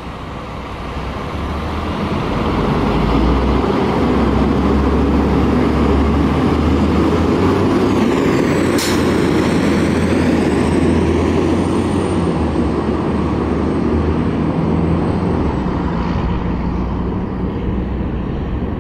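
Fire engine's diesel engine pulling out under power and driving past, a loud steady rumble that builds over the first few seconds, peaks as the truck passes about nine seconds in, and eases slightly as it moves away.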